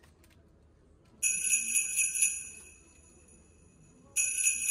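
A packet of small silver jingle bells jingling in two shakes, one about a second in and one near the end, each ringing for about a second before fading.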